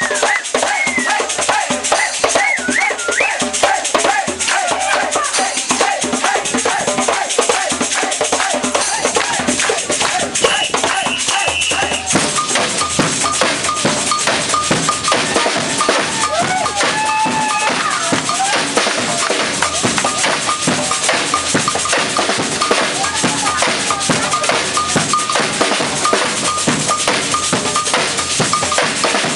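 Samba percussion band playing a batucada: surdo bass drums, snare drums and shakers, with a steady cowbell beat ringing over the drums. The deep drums come in fuller about halfway through.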